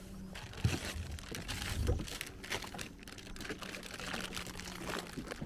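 Plastic bait bag crinkling and rustling in a series of irregular crackles as it is handled, with a faint steady low hum beneath.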